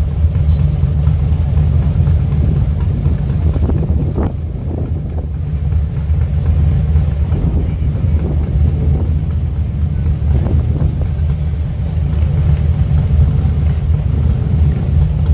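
Motorcycle engine idling close by: a loud, steady low rumble.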